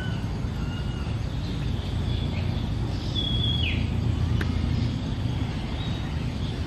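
Birds calling with short whistles, the loudest about three seconds in, a held note that drops sharply in pitch at its end, over a steady low rumble. A single sharp click comes about four and a half seconds in.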